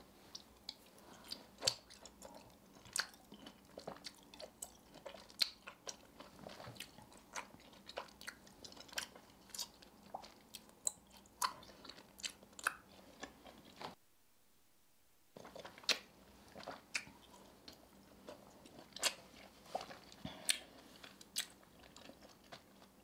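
Close-up eating sounds: someone biting into and chewing caramel-coated Shine Muscat grapes, a long run of sharp, crisp crunching clicks, broken by a short silent gap just past halfway.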